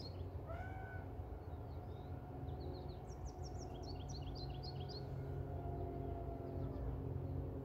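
1964 Corvair Monza Spyder's factory power top running as the top folds down: a steady low motor hum with a faint whine. A small bird chirps in quick series about three to five seconds in.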